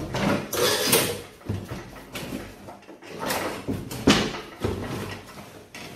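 Plastic rear fender shroud of a Craftsman DLT3000 riding mower being wiggled and pulled off the frame: plastic scraping and rattling, with sharp knocks about a second in and again around three and four seconds in.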